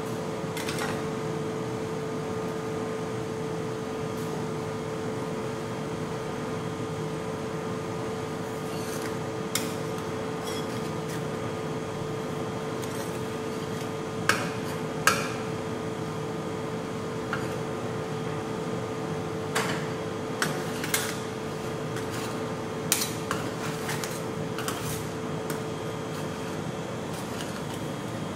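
Metal spatulas clinking and scraping on a steel ice-cream cold plate: a few scattered clinks in the first half, then more frequent sharp clinks and scrapes from about halfway as the poured cream is chopped and spread. A steady hum runs underneath.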